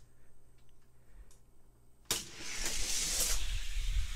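Small plastic clicks as two die-cast toy cars are set in a toy track's starting gate, then about two seconds in the gate is released and the cars roll down the plastic track: a sudden, loud, steady rolling hiss with a low rumble underneath.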